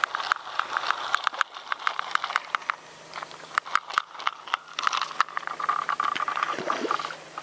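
Irregular clicking and rattling of a fishing reel being handled and cranked, several sharp ticks a second.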